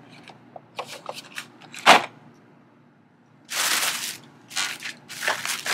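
Retail packaging being handled on a tabletop: a few light taps, a sharp knock about two seconds in as a boxed set of metal shower curtain hooks is set down, then stretches of plastic packaging rustling.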